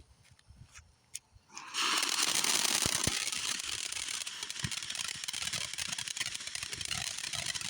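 A firework lit nearly two seconds in, starting suddenly and then hissing and crackling steadily, a dense spray of small crackles with an occasional louder pop.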